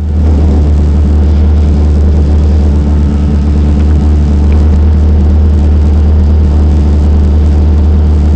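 Rally car's engine running at a steady speed while the car stands still, heard from inside the cabin. It gets louder right at the start and then holds an even, unchanging note.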